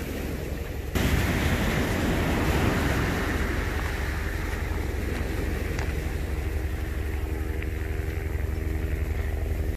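Surf washing over a cobble beach, with wind rumbling on the microphone. From about halfway in, a steady engine hum joins in.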